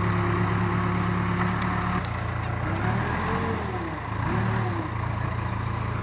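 Case 580K backhoe's diesel engine running steadily. About two seconds in its note shifts, and through the middle there are rising and falling tones as the machine works its loaded bucket.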